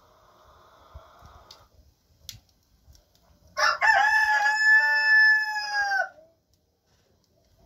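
A rooster crowing once, a single call of about two and a half seconds starting about halfway through, with a stuttering onset and a drop in pitch at the end.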